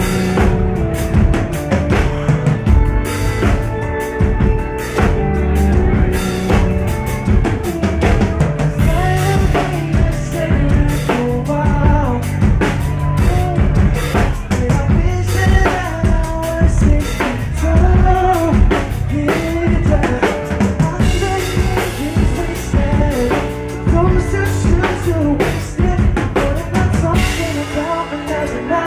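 Rock band playing live: drum kit keeping a steady beat with kick, snare and rimshots under electric guitar and bass, and a male lead vocal sung into the microphone.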